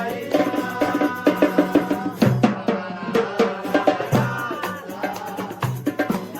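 Background music with a percussion-driven beat: regular drum strikes over a bass line and melodic notes.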